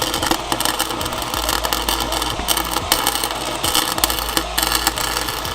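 Welding arc crackling in one continuous run over a steady low hum, as a plate is welded into an open differential to weld the diff shut (lock it).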